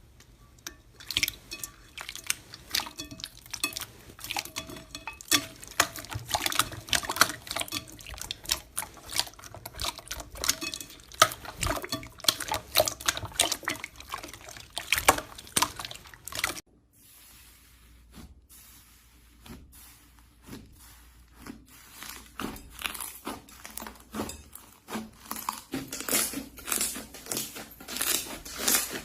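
Slime being squeezed and kneaded by hand: a dense, irregular run of wet clicks, pops and squelches, with a short lull about two-thirds of the way through before it picks up again.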